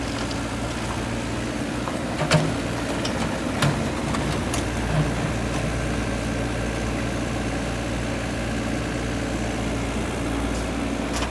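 A mini excavator's engine running steadily at a low idle, with a few sharp knocks about two, three and a half, and five seconds in.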